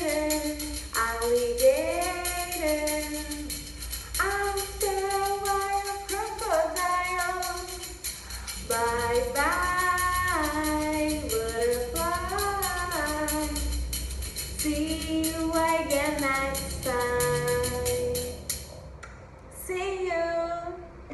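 A woman singing a simple tune while a tambourine is shaken in a steady jingle. The tambourine stops about 19 seconds in, and a last short sung phrase follows.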